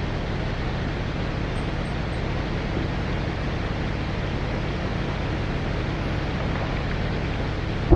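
A steady engine drone under an even hiss, with a short sharp knock near the end.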